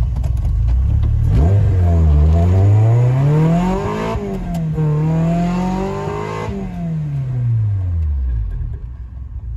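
Honda VTEC engine in a freshly swapped car accelerating hard, its note rising in pitch, dipping briefly about four seconds in at a gear change, then climbing again before falling away. It runs on a base map, with VTEC not yet active.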